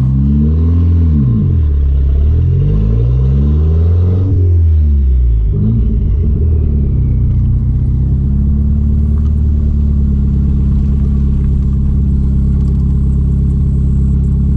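Chrysler Conquest's turbocharged 2.6-litre four-cylinder engine under way on the road. The engine note rises and falls several times over the first five seconds or so, then holds steady at cruise.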